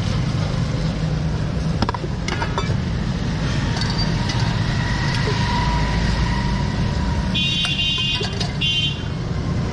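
Steady roadside traffic rumble from passing vehicles, with two short, high horn toots near the end.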